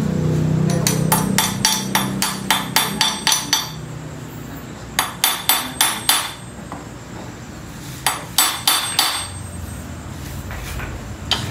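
A metal hand tool working on a bare Honda CRF engine's cylinder head during cam-timing adjustment: three runs of sharp metallic clicks, about three to four a second. A low rumble underneath fades out about four seconds in.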